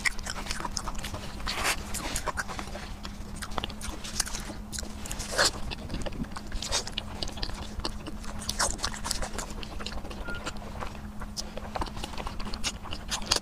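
Close-up wet chewing and lip-smacking of soft, fatty braised pork knuckle: a dense, irregular run of sticky clicks and squelches.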